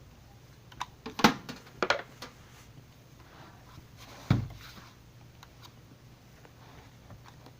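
A few sharp knocks and clicks, several in the first two seconds and one strong knock about four seconds in, over a faint steady low hum.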